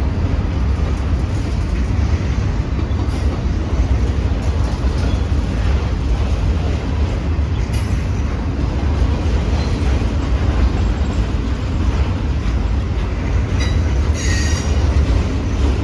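Freight train cars rolling past close by, a steady heavy rumble with short high-pitched wheel squeals, the clearest about fourteen seconds in.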